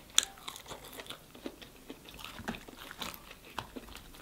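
Close-up mouth sounds of a person biting into and chewing a crinkle-cut French fry: a sharp click at the bite near the start, then soft, irregular chewing clicks.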